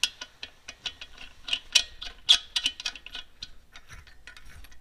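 Light metallic clicks and ticks, irregular, a few a second, as the shortened air-brake push rod and its threaded hardware are fitted back onto a truck's front brake chamber by hand.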